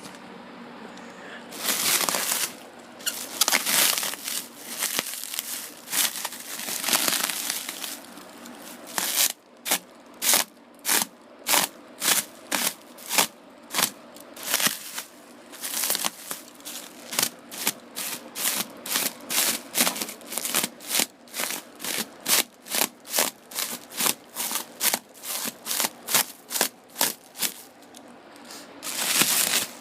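Crinkling and rustling of handled material such as paper or plastic wrapping. There are a few longer rustles, then a long run of short, regular strokes about two a second, then another long rustle near the end.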